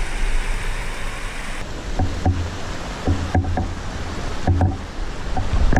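Shallow mountain creek water running over granite. Then a series of dull, paired thumps as the handheld camera is carried over the rocks.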